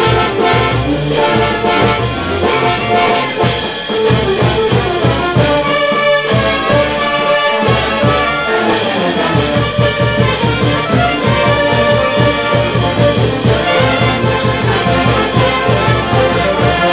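A Peruvian brass band of trumpets, trombones, saxophones and tubas, with bass drum, snare drum and cymbals, plays a lively tune on a steady beat. About six seconds in, the drums and low brass drop out for a moment, then come back in.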